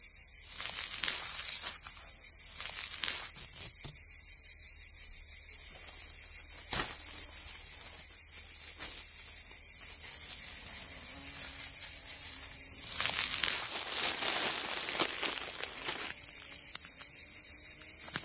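Dry crackling and crinkling over a steady hiss: the papery chrysalis case splitting and rustling as a butterfly pushes its way out. The crackles come singly at first, then bunch together about 13 to 15 seconds in.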